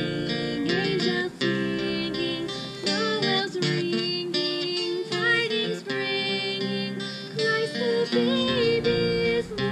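Live music from a small band: acoustic guitars strummed under a sung melody.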